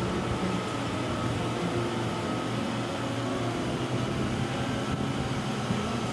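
Wood-Mizer SlabMizer MB200 carriage rolling along its steel track as it is pushed by hand: a steady rolling noise with a faint hum.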